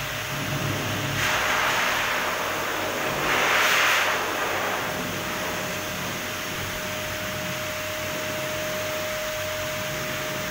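Wall-mounted dog grooming blower dryer running steadily with a constant whine, its rush of air swelling louder twice in the first five seconds.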